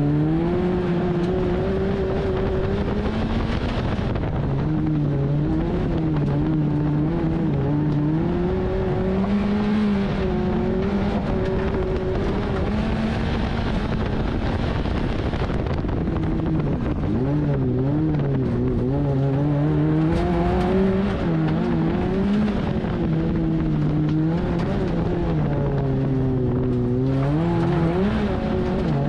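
Peugeot 106 autocross car's engine heard from inside the cabin at racing speed, its revs rising and falling again and again as it accelerates, changes gear and lifts off for corners.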